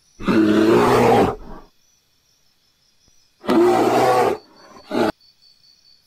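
Hippopotamus calling: two loud, deep calls about three seconds apart, each a little over a second long, then a brief short call just after the second.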